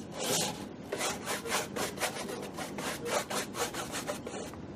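Paintbrush bristles scrubbing back and forth over a stretched canvas in quick repeated strokes, several a second, brushing a thin film of oil medium onto the painting's surface.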